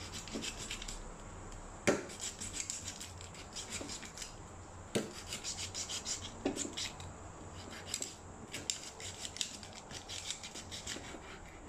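Kitchen knife sawing through a whole raw duck's skin and joints in many short rasping strokes while the bird is cut into parts. A few sharper knocks stand out, about two seconds in and again about five seconds in.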